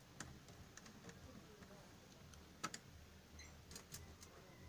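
Faint, scattered clicks and taps of small screws and a screwdriver being handled against a laptop's plastic case, with one sharper click about two and a half seconds in.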